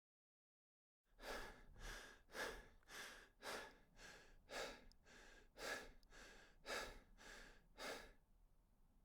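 Rapid rhythmic breathing-like sound, about two strokes a second, starting about a second in and fading near the end.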